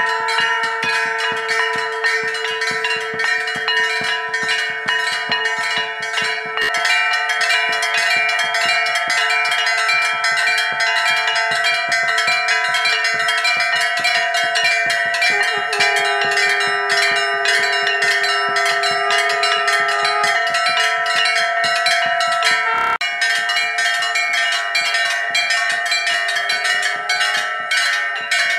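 Many hanging brass temple bells rung together by hand, struck rapidly and continuously so their ringing tones overlap in a dense clangour. The blend of pitches shifts abruptly twice.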